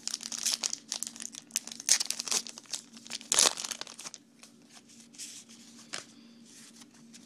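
Trading card pack wrapper crinkling and tearing as the pack is opened, with sharp rips about two and three and a half seconds in, then softer rustling as the cards are drawn out.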